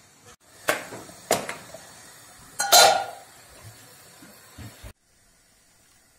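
Metal pots and lids clanking on a gas stove: a few sharp knocks with ringing in the first three seconds, the loudest about three seconds in.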